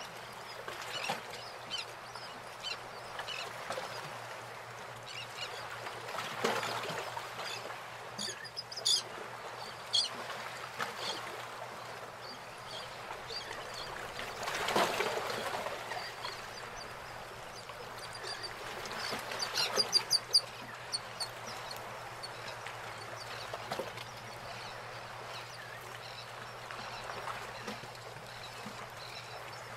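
Bird calls in clusters over a steady background hiss, the calls sharpest about a third of the way in and again past the middle.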